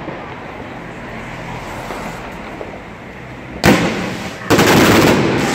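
A TXB869 Triplex fireworks cake, 600 shots of 1.2-inch calibre, bursting into action about two thirds of the way in after a few seconds of low background noise. Its tubes fire in a rapid, dense barrage that briefly eases and then comes back louder.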